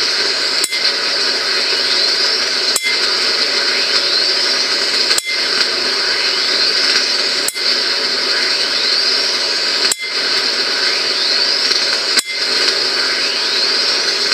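A high-voltage discharge rig gives a steady loud hiss, broken six times at even intervals of about two and a half seconds by a sharp click with a brief dip in the hiss. A thin whine rises in pitch after each click.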